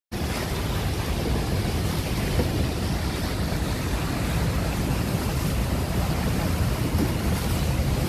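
Steady roar of the Rhine Falls, a massive waterfall, with white water crashing into the plunge pool close by. Loud and unbroken, heaviest in the low rumble.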